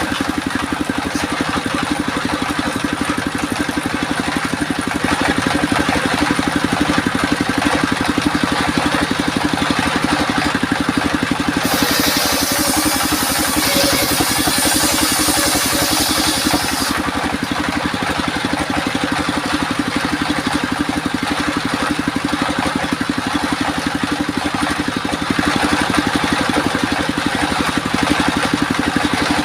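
Home-built sawmill circular saw machine running steadily. For about five seconds near the middle a brighter, hissing sound joins it as the blade cuts through albasia wood.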